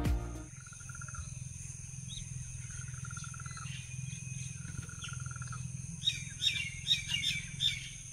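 Background music cuts off about half a second in, leaving outdoor ambience. There is a steady low hum and thin high steady tones, a short buzzy bird trill three times, then a quick series of bird chirps near the end.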